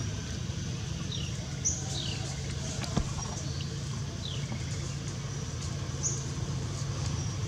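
Outdoor ambience: a steady low rumble with a few short high chirps, some falling in pitch, and a single sharp click about three seconds in.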